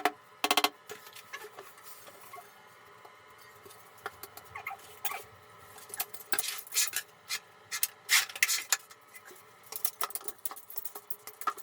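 Irregular light clicks and taps of hard objects knocking together, coming in clusters that grow louder about six and eight seconds in.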